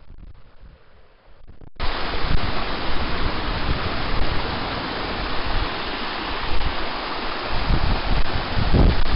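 A faint outdoor hush, then, after a sudden cut about two seconds in, a loud steady rush with uneven low buffeting, typical of wind blowing on the microphone on an open coast.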